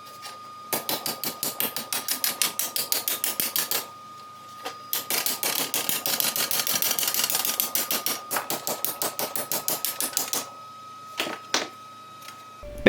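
Rapid hammering on steel, sharp evenly spaced strokes about eight a second, in two long runs with a short pause between, then two single knocks near the end. A faint steady tone runs underneath.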